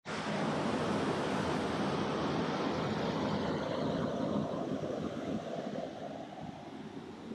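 Rushing water of a mountain stream falling over rocks into a pool: a steady, dense rush that begins abruptly and grows quieter and duller over the last couple of seconds.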